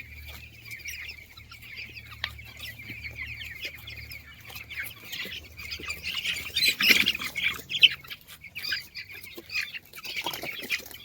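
A flock of chickens peeping and chirping continuously, with a louder flurry of squawks and wing flapping about seven seconds in. A faint low hum runs underneath.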